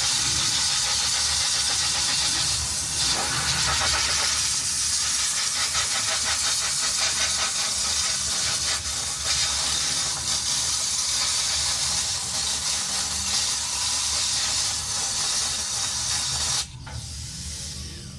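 Steady, loud hiss of a spray, which cuts off abruptly near the end.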